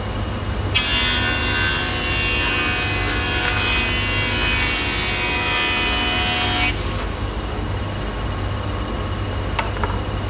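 Jointer (surface planer) cutterhead taking a 3 mm cut as a rough board's face is pushed across it. The loud cutting noise, laced with a high ringing whine, starts about a second in and stops suddenly about six seconds later. Around it the machine idles with a steady hum.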